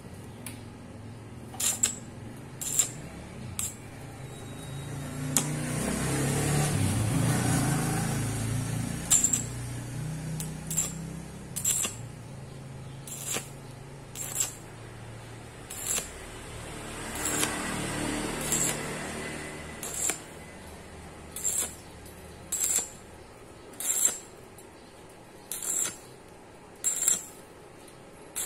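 Stick (arc) welder tack-welding the kerf-cut bend of a square hollow steel pipe: a string of short arc bursts, about fifteen, roughly one to one and a half seconds apart. A louder low rumble swells up twice.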